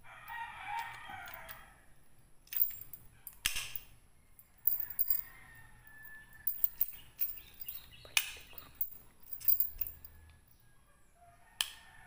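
A rooster crows once in the background for about two seconds, then come several sharp metal clicks and knocks as the shackle of an alarm padlock is pushed in and worked. The padlock's alarm stays silent, which the owner suspects is down to a battery fitted the wrong way round.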